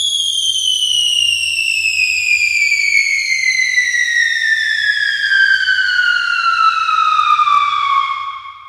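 Falling-bomb whistle sound effect: one long whistle gliding steadily down in pitch from high to low, fading out near the end.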